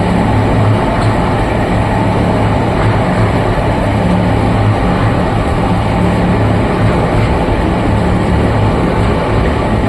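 Oil expeller (screw oil press) running steadily: a loud, even mechanical din with a strong low hum.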